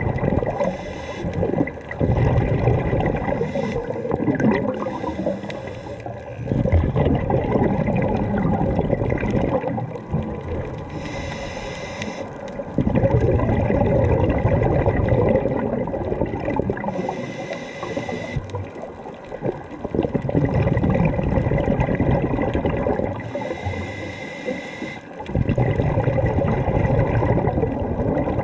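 Scuba diver breathing through a regulator underwater: long bubbling exhalations, repeating every five to six seconds, with a quieter hiss of inhalation between them.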